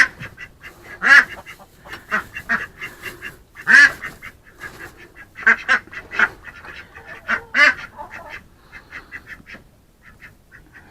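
Duck quacking repeatedly, a string of separate calls with the loudest about a second, four seconds and seven and a half seconds in, thinning out near the end.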